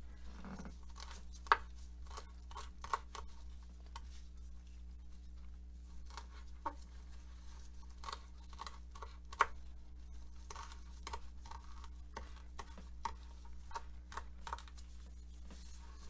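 Kitchen knife chopping fresh parsley on a plastic cutting board: scattered, irregular taps of the blade on the board over a steady low hum.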